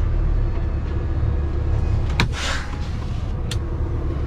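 Diesel semi-truck engine idling with a steady low rumble. About two seconds in, a sharp click is followed by a short hiss of air.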